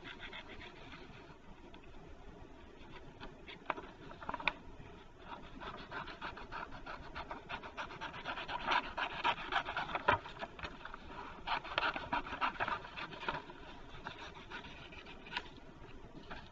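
Scissors cutting paper: a long run of short snips with paper rustling, busiest through the middle.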